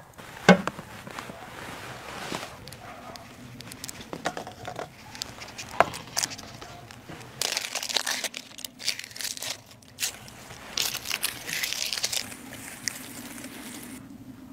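Dry, papery onion skin crinkling and crackling under the fingers as an onion is peeled by hand, in two bursts in the second half with scattered small clicks. A single sharp click sounds about half a second in.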